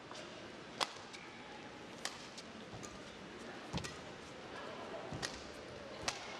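Badminton rackets striking a feather shuttlecock back and forth in a rally: about five sharp hits, spaced a second or more apart, over a faint arena background.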